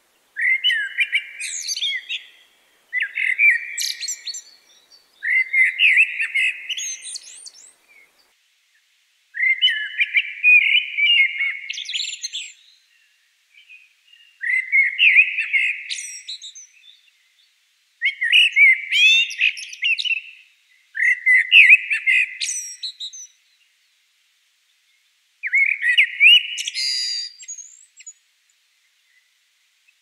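Common blackbird singing: about eight separate warbled phrases, each a couple of seconds long and ending in higher, thinner twittering notes, with short pauses between them.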